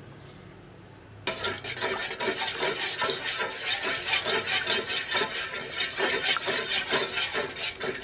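Spatula stirring a thin liquid jelly mixture briskly in a metal saucepan, scraping and clinking against the pot in quick strokes, several a second, starting about a second in.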